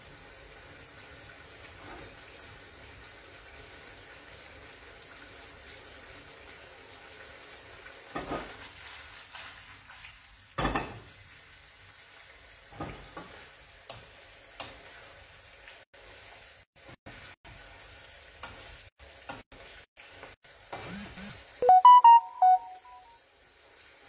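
Pasta sizzling softly in a frying pan as it cooks down, stirred with a wooden spoon, with a couple of sharp knocks of the spoon against the pan. A short pitched sound near the end is the loudest moment.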